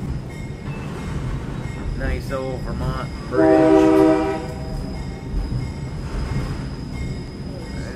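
Alco RS-1 diesel locomotive #405's horn sounding one chord blast of a little over a second, about three seconds in, over the steady rumble of the train running on the rails.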